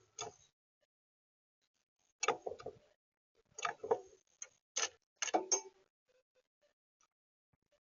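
Quick taps and clicks in four or five short bursts over about six seconds, typical of a bird pecking seed on a feeder tray right at the feeder camera's microphone.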